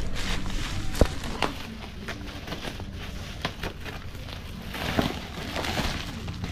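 Plastic shipping pouch crinkling and rustling as it is handled and opened, with scattered sharp clicks and a louder snap about a second in.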